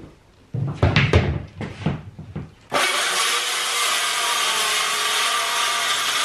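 Ryobi 18V One+ cordless circular saw cutting through a sheet of OSB, a steady, loud cut that starts about three seconds in. Before it there are a few knocks as the board is handled.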